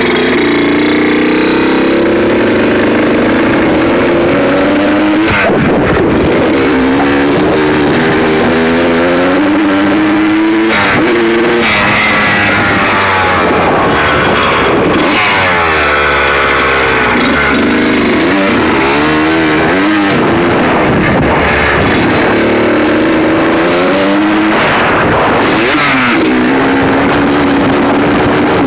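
Suzuki RM125's two-stroke single-cylinder engine under way, loud, its pitch climbing and dropping back again and again as the bike revs up and changes speed.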